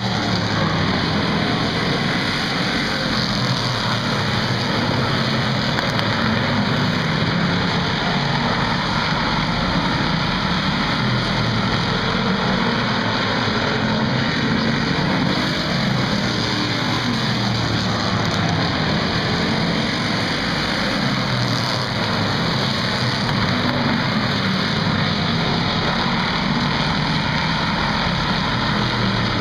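A pack of short-track stock cars racing around an oval, their engines running hard together in a loud, continuous drone whose pitch wavers as the cars go through the turns.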